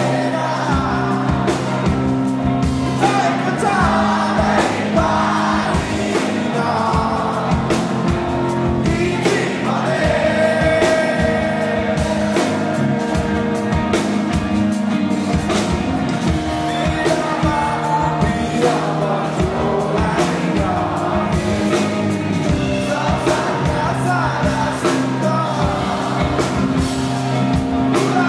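Live rock band playing a song: electric guitars, bass and drums keep a steady beat under a male lead vocal, recorded from the audience.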